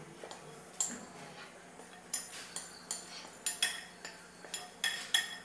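A spoon and glass bowls clinking as grated carrot, dates and cashews are knocked out of one glass bowl into cake batter in another. The sharp, ringing clinks come two or three a second from about two seconds in, after a single one about a second in.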